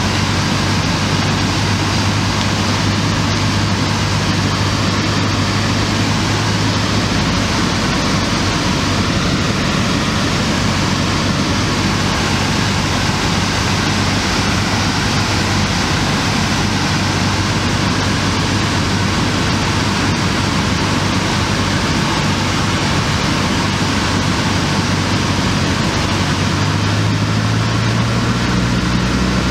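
Cessna 152's four-cylinder Lycoming engine and propeller droning steadily, heard inside the cockpit with the rush of airflow, during final approach. The engine note steps up near the end.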